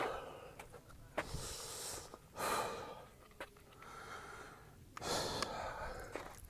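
A person breathing heavily and out of breath, several loud breaths in and out a second or two apart.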